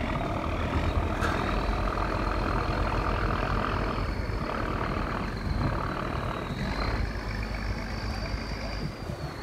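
Fishing boat's diesel engine running steadily: a low rumble with a thin high whine held above it that rises slightly near the end.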